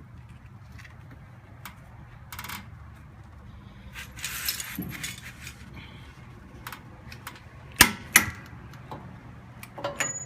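Metal objects clinking and jangling, with two loud sharp knocks close together about eight seconds in.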